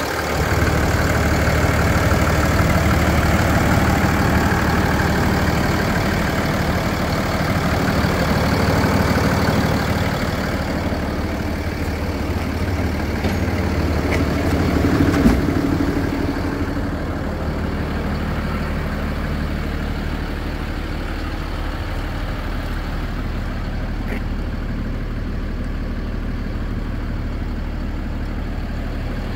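The truck's Cummins 6.7-litre diesel idling steadily. It is louder and brighter at first, and duller and a little quieter from about halfway on.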